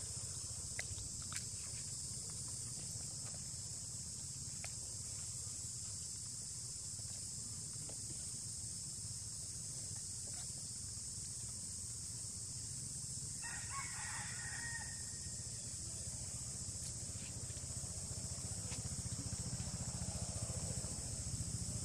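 Steady high-pitched drone of insects, with a rooster crowing once about two-thirds of the way through, and a few faint clicks.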